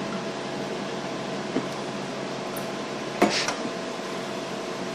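Cell sorter (flow cytometer) running with a steady hum made up of several constant tones. A light click comes about one and a half seconds in, and a louder short clack about three seconds in as the sample tube is loaded and the sample chamber is closed.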